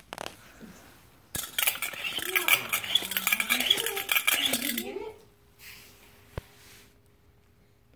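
Bolz tin spinning top being pumped by hand: a loud metallic rattle from the plunger and spiral shaft starting about a second in, with a hum that sinks in pitch and then rises again. The pumping stops about five seconds in and the top spins on with a steady hum that fades out, broken by one sharp click.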